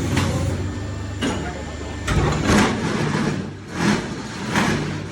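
K400 semi-automatic hydraulic paving-block machine running: a steady engine hum, with loud noisy surges repeating about once a second from about two seconds in.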